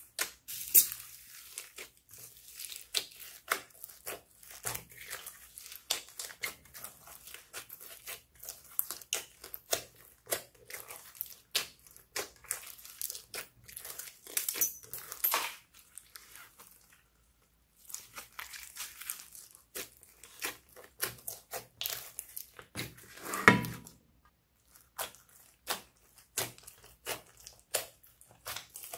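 Clear slime full of foam beads being kneaded, squeezed and stretched by hand: a quick run of sticky clicks, pops and crackles with a few short pauses, and one louder, longer squish late on.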